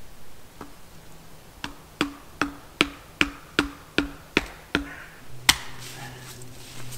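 Hammering: a run of about ten hard knocks, evenly paced at roughly two and a half a second, each with a short ringing tone. One louder knock follows about five and a half seconds in.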